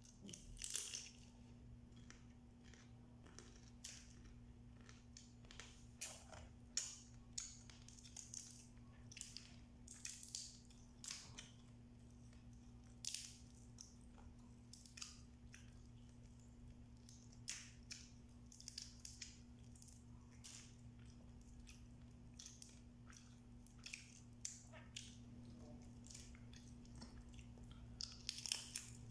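Cooked blue swimming crab being picked apart and eaten: irregular sharp cracks and clicks of crab shell breaking, with chewing, over a faint steady hum.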